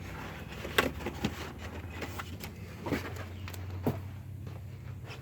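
A few short, light knocks and clicks over a steady low hum.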